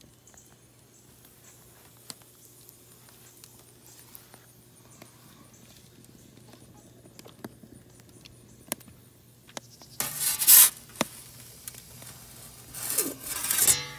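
Sparse crackles and pops from the fire burning under a brick pizza oven's floor, over a low steady hum. Two loud rushing bursts of noise break in about ten and thirteen seconds in.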